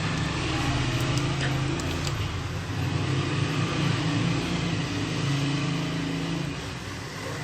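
Steady low mechanical hum of a running motor, with a few faint light clicks.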